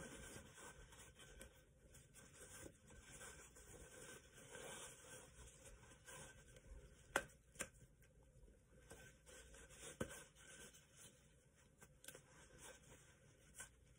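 Near silence with faint rustling of a paper towel mask being handled and fitted over the ear, broken by a few soft clicks, two close together about halfway through and one about ten seconds in.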